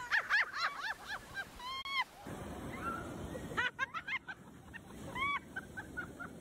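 High-pitched, cackling laughter in quick honk-like bursts. About two seconds in, after a cut, comes the steady wash of surf, with a few more bursts of laughter over it.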